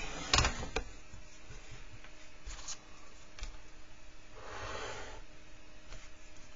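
A marker pen drawn along a wooden ruler across paper: one soft scratchy stroke lasting just under a second, a little past halfway through, after a few light knocks near the start as the drawing instruments are set down and moved.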